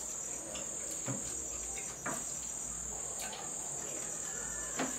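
Steady high-pitched insect chirring, with a few faint clicks: about a second in, at two seconds, and near the end.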